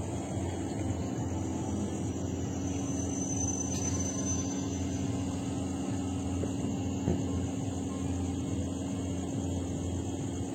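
A steady engine drone with a low, even hum.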